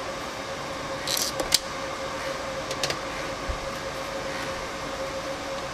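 Small handling noises on a desk: a short scrape and a sharp click about a second and a half in, then a fainter click near three seconds, as a small display case is set down and a cardboard mailer box is handled. A steady hum lies under it all.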